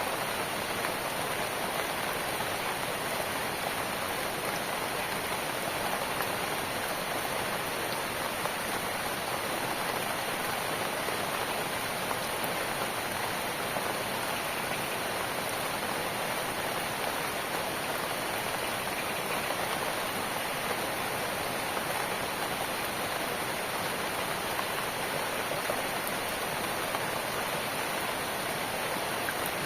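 Steady rain falling, an even hiss of rain on surfaces with no let-up.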